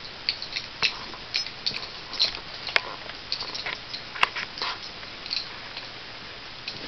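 Small dogs playing: a run of irregular quick clicks and light taps, several a second.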